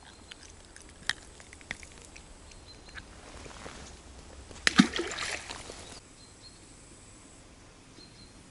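River water sloshing, with a louder splash about five seconds in and a few light clicks before it.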